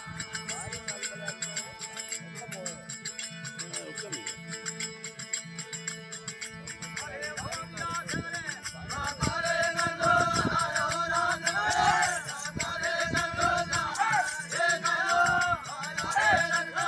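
Rajasthani folk bhajan music with a steady rhythm of small percussion clicks; a wavering melody comes in louder about nine seconds in.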